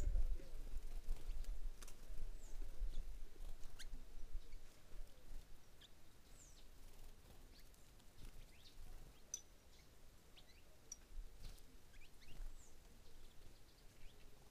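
Scattered short, high chirps of small birds, some notes sliding down in pitch. A low rumble sits under them for the first few seconds, then fades.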